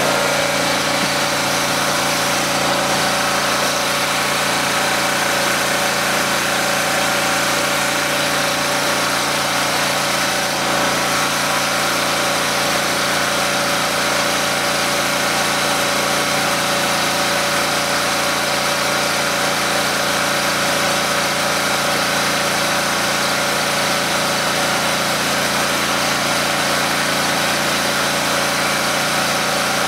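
Small portable generator engine running steadily, without changing pitch, fuelled on hydrogen with part of its exhaust piped back into the intake.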